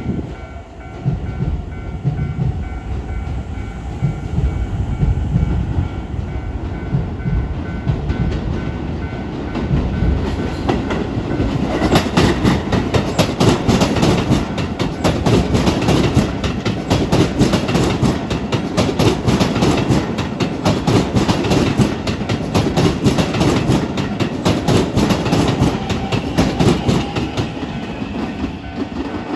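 Keisei 3100-series electric train passing over a level crossing: low rumble as it approaches, then dense, rapid wheel clatter over the rail joints and crossing from about ten seconds in until near the end. The crossing's warning bell rings with a steady high tone before and after the train, buried under it while it passes.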